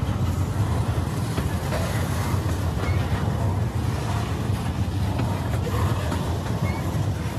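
Freight train cars rolling past: a steady low rumble of steel wheels on the rails, with faint clicks over the joints.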